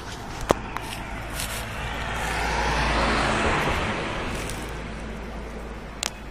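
A road vehicle passing: a rushing noise swells over a couple of seconds, peaks about three seconds in, then fades away. There are sharp clicks near the start and near the end.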